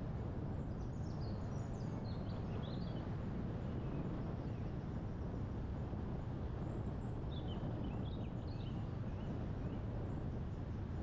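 Steady low wind noise with songbirds chirping over it: a run of quick chirps about a second in and another about seven seconds in.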